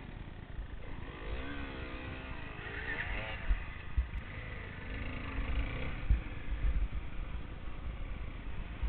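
Enduro motorcycle engine revving up and down as the bike rides over rough grassy ground. Low thumps come through now and then.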